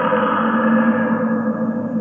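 Heavily distorted, echoing sustained drone made of steady tones; its higher part fades about two-thirds of the way through, leaving the lower tone.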